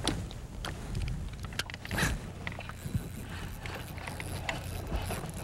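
Spinning reel clicking irregularly as a small bass is played and reeled in on light tackle, with a brief rush of noise about two seconds in.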